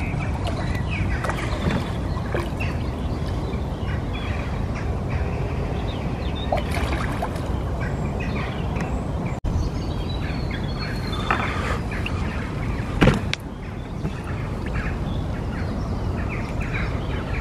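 Steady low outdoor rumble with small birds chirping now and then, a sudden break about nine seconds in, and a brief louder knock or rustle about thirteen seconds in.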